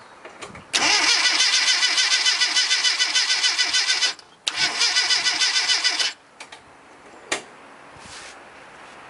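Starter motor cranking the 1989 Mini's 998 cc A-series four-cylinder engine in two bursts, a long one and then a shorter one after a brief pause, with an even pulsing rhythm and no firing. It turns over but won't start, a fault the owner links to a newly fitted coil and electronic distributor. A single short click follows the cranking.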